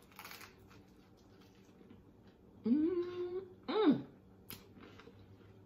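A woman hums 'mmm' twice through a mouthful of peach fritter, pleased with the taste. The first hum, about three seconds in, rises and holds briefly; the second is short. A faint soft sound of the bite comes at the very start.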